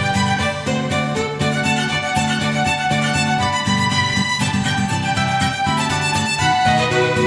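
Background music led by a violin over a steady, rhythmic accompaniment.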